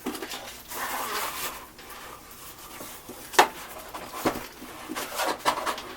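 A boxed computer case being flipped over and handled: cardboard and packaging rustling, then several sharp knocks as the box is set down and moved, the loudest about three and a half seconds in.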